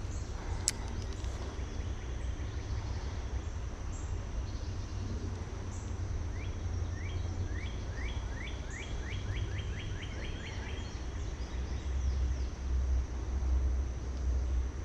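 Outdoor creekside ambience: a steady low rumble with a thin steady high tone over it. From about six and a half seconds in, a bird sings a run of about fifteen quick down-slurred notes that speed up toward the end.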